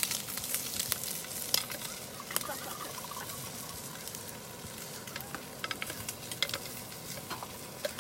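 Bacon and asparagus frying in a pan: a steady sizzle with scattered pops and crackles.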